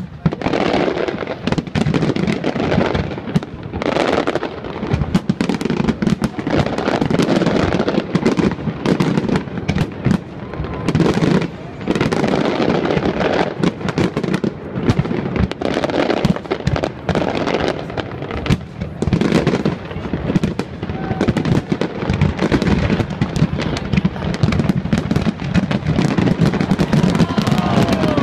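Aerial fireworks shells bursting in rapid, near-continuous succession: a dense, loud barrage of bangs with hardly a pause.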